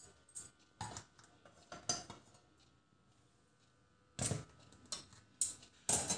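Metal cookware clinking and knocking as a metal cake tin is lifted out of a kadhai and set down on a wire stand: a few separate clatters, with a pause of about two seconds in the middle.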